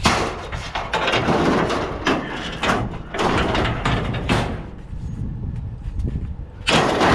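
Scrap being passed up and loaded onto a heaped pickup: several bursts of scraping and clattering as pieces slide and knock against the load.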